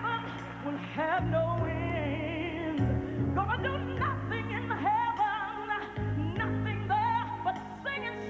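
A woman singing a gospel song solo, with wide vibrato on long held notes, over a band accompaniment of sustained bass chords that change every second or two.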